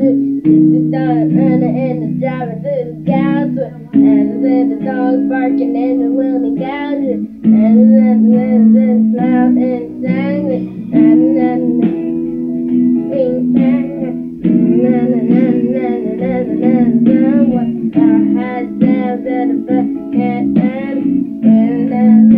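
A song playing loud: guitar chords under a sung lead melody with vibrato.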